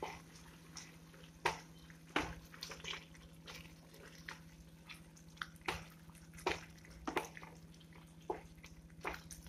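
A wooden spatula stirring a thick, wet vegetable mixture of peas, carrots and crushed tomato in a kadai. It makes soft, irregular scrapes and wet clicks, about one or two a second, over a faint steady low hum.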